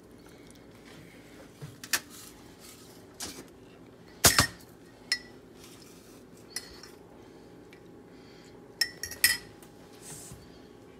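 Scattered sharp clinks of kitchenware: a metal spoon knocking against a ceramic cup and a stainless steel mixing bowl. The loudest clink comes about four seconds in, and a quick run of clinks about nine seconds in.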